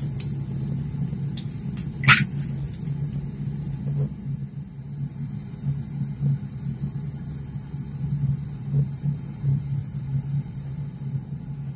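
A metal spoon taps an egg's shell a few times, with one sharper crack about two seconds in, over the steady low rumble of water at a rolling boil in a camping pot on a portable butane gas stove.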